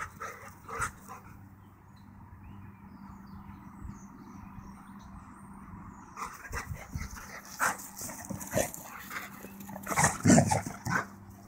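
Two large dogs playing rough, barking. The barks come in a busy run over the last few seconds, with the loudest burst about ten seconds in.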